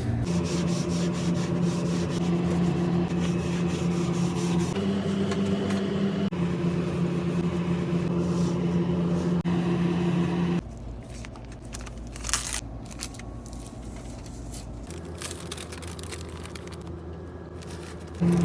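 Trane packaged air-conditioning unit running, a steady mechanical hum. The hum drops away about ten seconds in and comes back abruptly right at the end.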